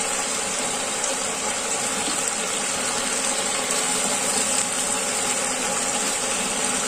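Chicken pieces and vegetables frying in a large pan, a steady sizzle, as chunks of potato are tipped in from a cutting board.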